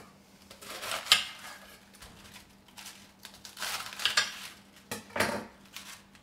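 Romaine lettuce being trimmed by hand on a cutting board: three bursts of crisp crunching and rustling as leaves are snapped off the head, the sharpest about a second in.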